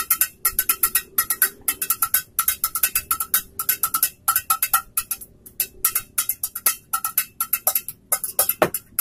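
Improvised percussion played with thin sticks on household objects, a metal pot, coconut shells and wood: a fast, rhythmic run of taps, several a second, each with a short pitched clink, broken by a couple of brief pauses.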